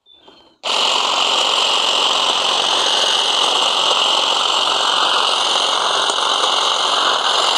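Cordless electric hedge trimmer running steadily with a high whine, cutting through thick shoots at the top of a hedge. It starts up suddenly about half a second in.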